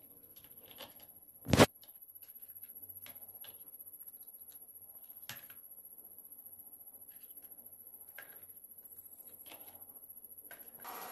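Fingers handling fried stuffed bitter gourds on a plate, pulling off the cooking thread tied around them: faint rustling and small clicks, with one sharp knock about one and a half seconds in and a smaller one a few seconds later.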